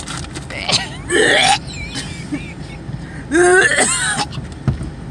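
A woman gives two loud gagging, retching cries of disgust, about a second in and again past the three-second mark, while a cow licks food from her hand. A steady low rumble runs underneath.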